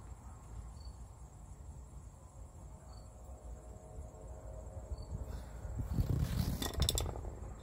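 A C-clamp being tightened by hand on the flat bar and parking brake cable under a pickup, quiet handling sounds, with crickets chirping steadily behind. About six seconds in comes a louder short cluster of clicks, knocks and rustling.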